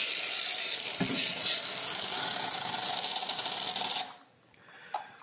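Aerosol can of odour-eliminator spray hissing in one long continuous burst that cuts off about four seconds in.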